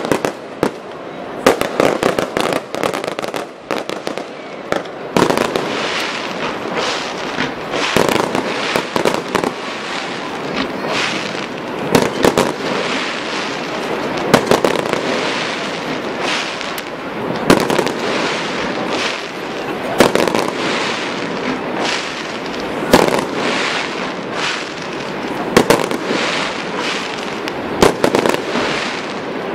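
Fireworks display: aerial shells bursting in a long run of sharp bangs, often several a second, over continuous crackling, with the loudest report a little past the middle.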